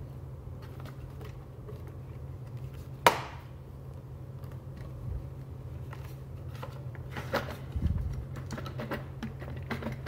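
Hard plastic clicks and knocks from a CEE form industrial plug being worked in its waterproof receptacle, with one sharp click about three seconds in and a few lighter ones later.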